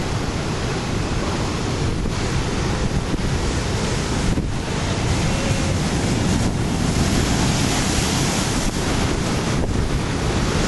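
Ocean surf breaking and washing over a rocky shoreline, a steady rush of water, with wind buffeting the microphone.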